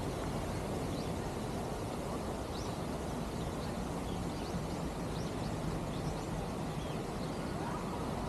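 Outdoor park ambience: a steady low rumble with faint, scattered bird chirps.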